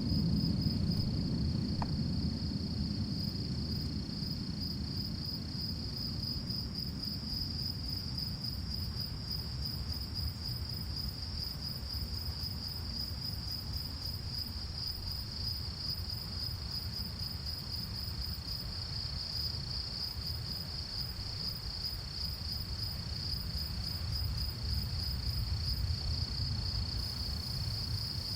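Steady chorus of singing insects, one continuous high trill, over a low rumble.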